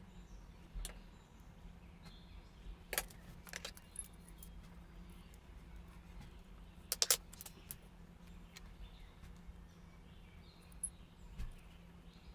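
Quiet kitchen room sound with a low steady hum, broken by a few sharp clicks and light clinks from handling, the loudest a quick double click about seven seconds in.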